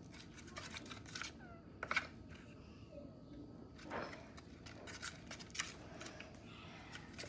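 Spoon stirring thick, clumpy slime mixture in a bowl: faint scrapes and soft clicks, the loudest about two seconds in and again at four seconds.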